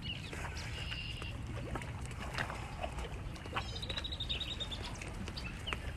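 Steady low outdoor rumble with faint scuffs of sneakers on concrete during fast mountain climbers. A bird gives a short rapid high trill a little past halfway.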